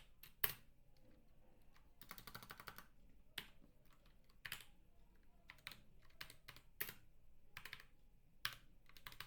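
Clacky computer keyboard being typed on: a quick run of keystrokes about two seconds in, then single keypresses roughly once a second, with another quick run near the end.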